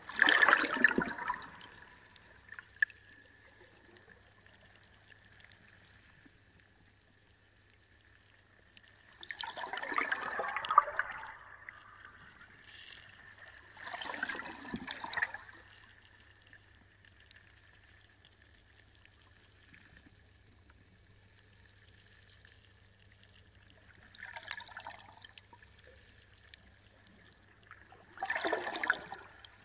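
Reef aquarium water splashing and pouring in five short surges, with a steady low hum underneath.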